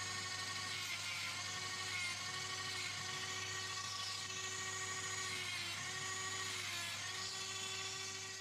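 Hand-held rotary tool with a cut-off disc running at a steady high whine, its pitch sagging briefly a few times as the disc bites into a capacitor's bakelite case.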